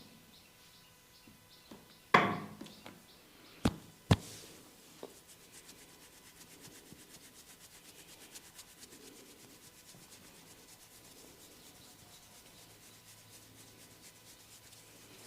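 A few sharp clicks in the first five seconds, the loudest about two seconds in. Then hands rub and scratch through hair on a scalp in a quick, even rhythm of soft scratchy strokes.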